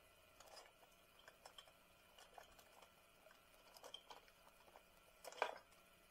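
Faint crinkling and rustling of a plastic bag of shredded cheese as a hand reaches into it, with a louder crackle near the end.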